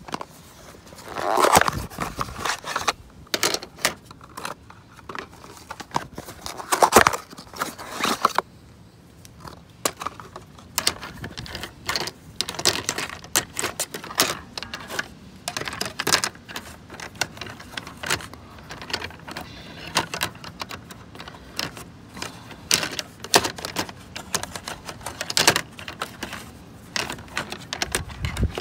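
Small metal engine parts and hand tools clinking and rattling as they are handled, in irregular clusters of clicks with a few louder clatters near the start.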